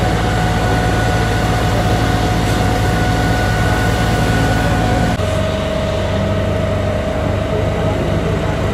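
A heavy engine running steadily with a whine over it; the whine steps down in pitch about five seconds in.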